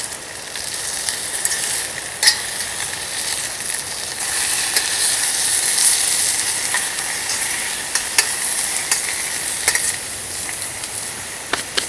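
Beef, onions and zucchini sizzling in olive oil in a metal bush pot over a campfire, a steady hiss with occasional sharp clicks and scrapes as the food is stirred.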